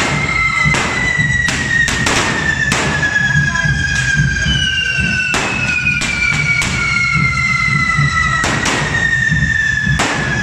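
Carretilles, hand-held devil fireworks, burning with a shrill whistle that slowly falls in pitch, a second whistle joining about halfway through. About a dozen sharp bangs go off at uneven intervals.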